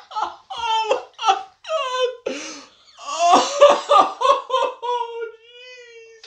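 A man crying out and whimpering in pain just after a nose-hair wax strip is ripped from his nostril, mixed with laughter. There is a louder outburst about halfway through, then one long held moan.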